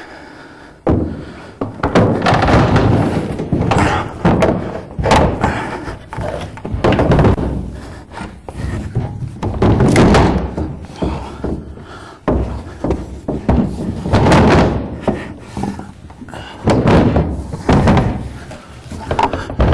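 Wooden sauna wall panel being handled and fitted into place, with repeated thuds and knocks of wood on wood.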